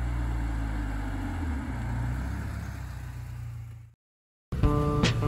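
1994 BMW E34 518i's four-cylinder petrol engine running as the car drives up, its note dropping about a second and a half in, then fading away to silence about four seconds in. Guitar music starts just before the end.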